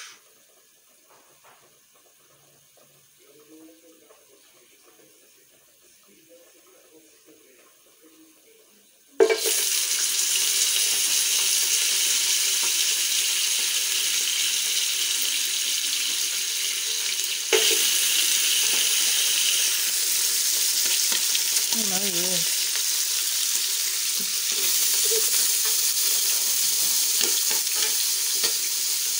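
Boiled beef chunks hitting a little hot oil in an aluminium stockpot: after a near-quiet start, a loud steady sizzle starts suddenly about nine seconds in and runs on as the meat fries, with a sharp click about halfway through.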